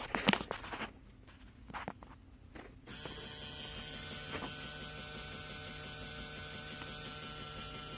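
A steady electric whirring buzz from behind the dashboard of a 2003 Dodge Durango SLT, around the heater and AC controls, starting about three seconds in after a few light clicks. It keeps going with the engine off and the key out of the ignition.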